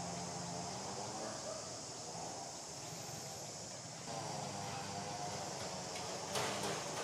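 Steady outdoor background noise with a constant high-pitched hiss and a low hum, and a brief rustle or knock about six and a half seconds in.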